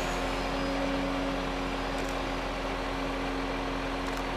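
Truck engine running steadily with an even, unbroken hum, driving the truck-mounted loader crane as it lifts a timber beam off the flatbed.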